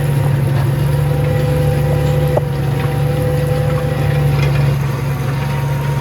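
Tractor engine running steadily under load while pulling a plough through the ground, a constant low drone.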